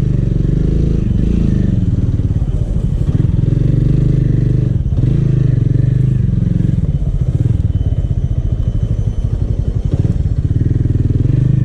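A two-wheeler's small engine running at low speed on a rough off-road track, its note shifting as the throttle changes.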